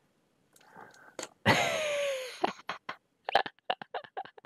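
A man laughing: a loud, breathy outcry with a falling pitch about a second and a half in, then a run of short, quick laughing pulses.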